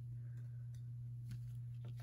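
A few faint, soft clicks of trading cards being handled, over a steady low hum.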